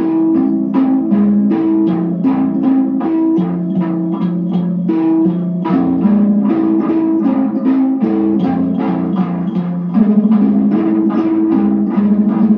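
Amplified kalimba (thumb piano) plucked in a quick, steady repeating figure of a few notes, about four to five notes a second, played through effects pedals into guitar amps.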